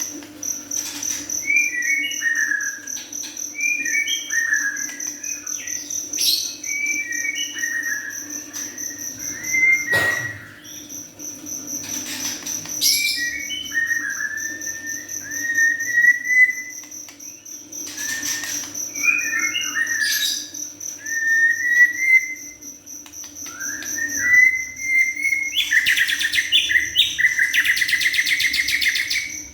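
Young white-rumped shama (murai batu) singing: short phrases of whistled, sliding notes repeated every couple of seconds, ending in a fast, buzzy rattling phrase near the end.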